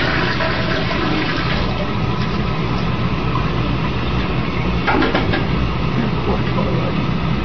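Toilet flushing: a steady rush of water through the bowl, set off by a cat pawing the flush handle.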